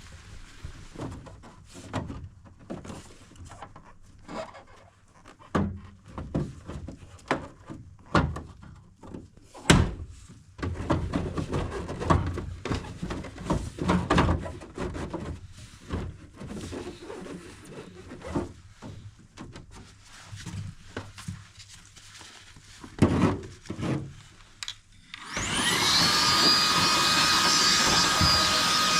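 Irregular knocks, clicks and rubbing from handling parts. About four seconds before the end, a HiKOKI cordless cleaning tool's motor spins up, rising in pitch, and settles into a steady high whine.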